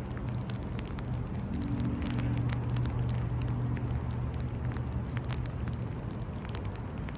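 A steady low hum with many scattered light ticks and crackles over it; no siren wail is heard.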